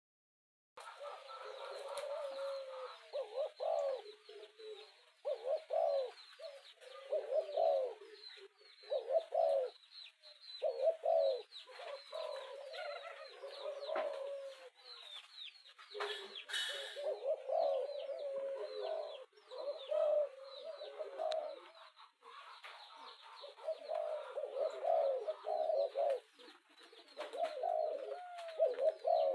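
Spotted doves cooing in repeated phrases, one bout after another with short gaps, over steady small-bird chirping. It is the rousing 'thúc' coo used to stir a caged dove into calling.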